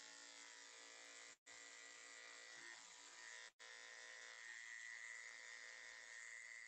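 Electric dog grooming clippers running with a steady, high-pitched buzz. The sound cuts out for an instant twice.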